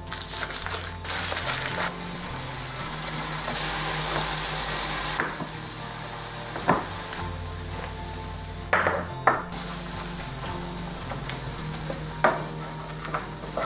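Salted peanuts with sugar and water sizzling in a hot nonstick frying pan as they caramelise, louder for the first five seconds or so. A few sharp knocks come in the second half.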